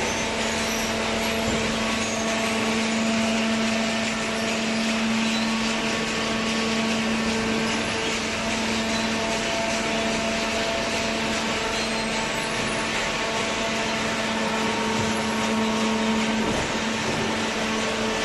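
Hydraulic paper baler's electric motor and oil pump running, a steady hum with a constant whine over a hiss.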